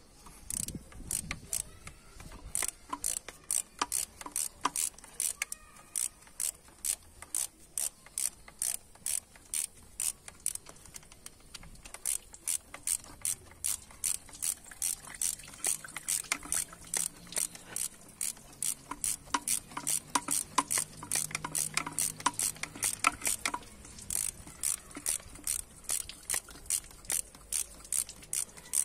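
Small hand ratchet clicking steadily, about two to three clicks a second, as it is swung back and forth to undo the thermostat housing screws.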